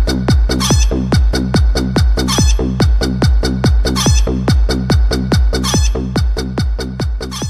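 Electronic dance music with a fast, regular kick-drum beat, about four thumps a second, and chicken clucking sounds mixed in.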